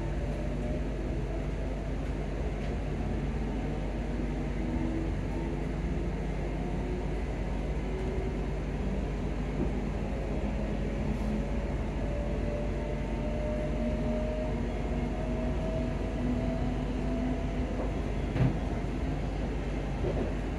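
Interior of a ScotRail Class 334 electric multiple unit under way: a steady rumble of wheels on the track, with an electric motor whine that climbs slowly in pitch as the train picks up speed. A single knock is heard near the end.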